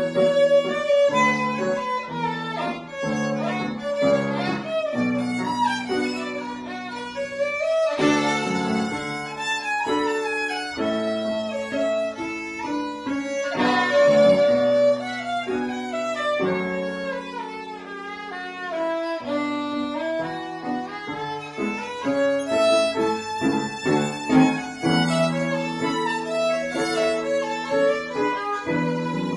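Violin playing a classical recital piece, melody in held and moving notes, over lower accompanying notes.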